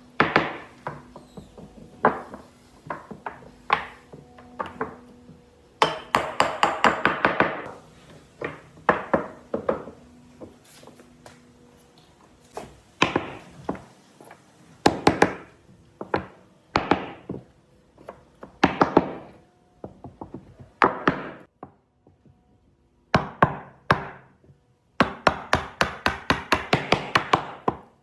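Hand-tool strikes on wood: single knocks mixed with quick runs of rapid tapping, with short pauses between.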